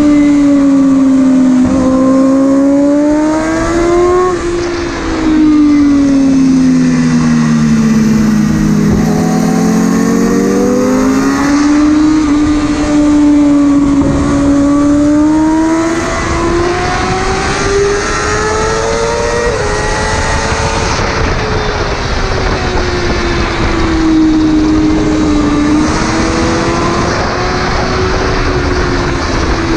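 Motorcycle engine at track speed, its pitch rising and falling over and over as the rider accelerates, shifts and rolls off through the corners, over a steady rush of wind noise. A second engine sounds at a lower pitch for a few seconds about a quarter of the way in: the other bike running close by.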